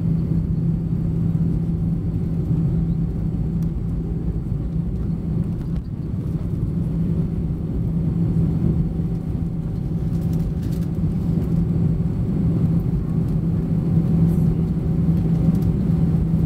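Airbus A320 cabin noise on the ground after landing: a steady engine and airframe rumble with a strong low hum, growing a little louder near the end.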